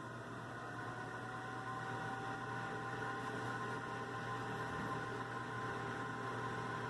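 Whirlpool convection oven's fan running, a steady hum with a whine in it. A sharp click comes right at the end.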